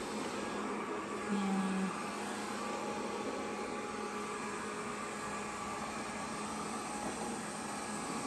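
GleeU GRS1 robot vacuum running steadily, its suction motor whirring. A short low tone sounds once, about a second and a half in.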